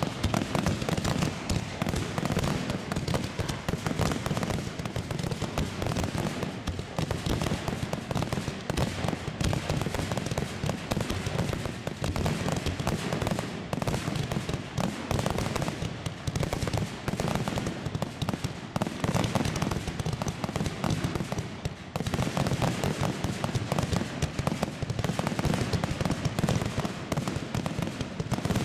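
Aerial firework shells bursting in a dense, rapid barrage of overlapping bangs that barely lets up.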